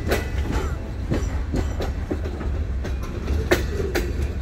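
Freight train rolling past close by: a steady low rumble with irregular sharp clacks from the wheels and cars.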